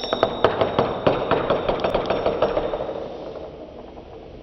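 A coin flicked into a spin on a wooden surface: a brief high metallic ring as it is set going, then a quick clicking rattle from its edge that gradually fades.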